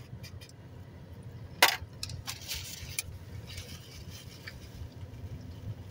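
Eating sounds: chewing with a few soft clicks, and one sharp click about a second and a half in, over a low steady hum.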